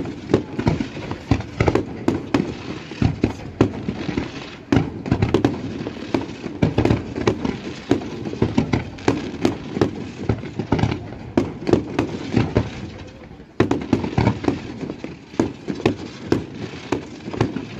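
Aerial fireworks display: shells launching and bursting in rapid, overlapping volleys of sharp bangs, with a short lull about two-thirds of the way through before the firing picks up again.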